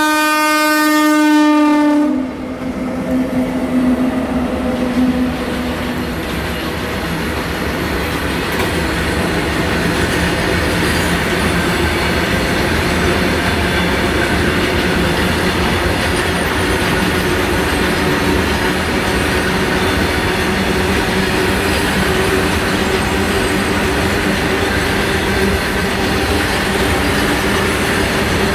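Twin WAP7 electric locomotives' air horn sounding one long note that cuts off about two seconds in, a fainter lower tone lingering a few seconds more as the locos pass. Then comes the steady rolling noise and clatter of the long rake of covered freight wagons going by.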